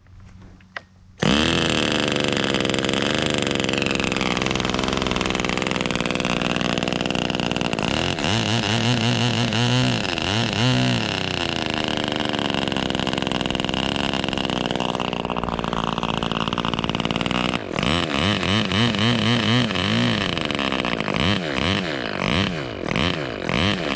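O.S. Max 35 R/C two-stroke glow model engine running under load from its propeller, cutting in loud about a second in. Its note is mostly high and steady, with stretches where it dips and warbles unevenly.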